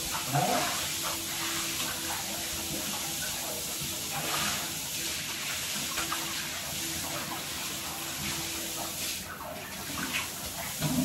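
Handheld shower running, water spraying into a bathtub as a dog is rinsed, a steady hiss that dips briefly near the end. A short rising voice-like sound right at the start.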